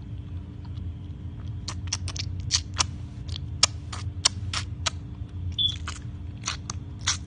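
Irregular wet clicking and squelching, a few sharp clicks a second, over a steady low hum. It is presented as the sound of the woman's aroused, wet genitals being touched.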